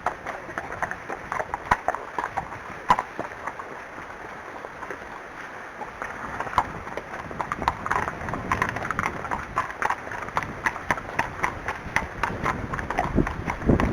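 Unshod horse hooves striking the ground in a walking rhythm, growing busier and louder about halfway through.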